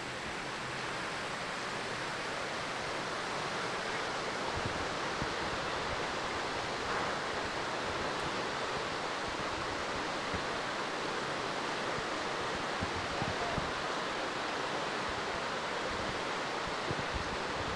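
Steady rush of fast-flowing floodwater, an even hiss-like roar with no pauses, with wind gusting over the microphone in low irregular rumbles.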